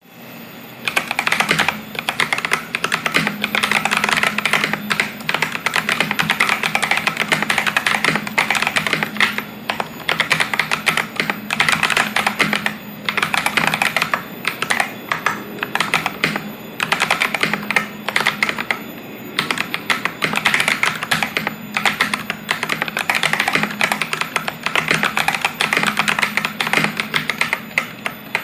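Fast, continuous typing on a Vortexseries VX64 Lite mechanical keyboard with lubed Akko CS Lavender Purple tactile switches, a polycarbonate plate and GSA keycaps. The keystrokes come in quick runs with a few short pauses.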